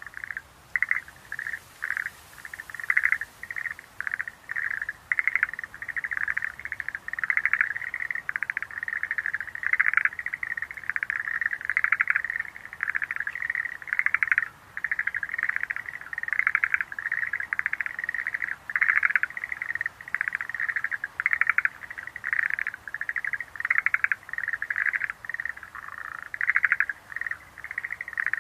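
Schlegel's green tree frogs calling: a steady run of short, rattling pulsed calls, one after another a couple of times a second, some louder and some fainter and overlapping, as from several frogs at once.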